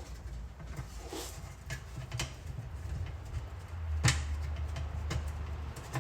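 A few sharp metallic clicks and taps, the loudest about four seconds in, over a low rumble. They come from a transmission pan's bolts being started by hand as the pan is held up in place.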